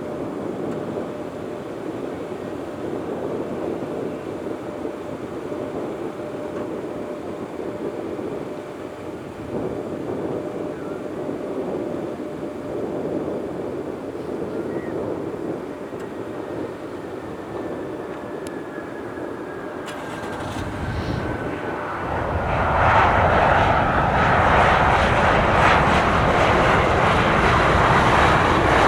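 Mitsubishi CRJ-900 regional jet landing: distant jet engine noise with a faint falling whine, then the engines grow suddenly loud about three quarters of the way through as the jet comes close.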